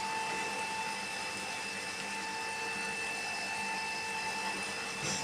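Large-format CO2 laser cutting machine running, giving a steady motor hum and whine with several held tones over an even whir. A light knock comes near the end.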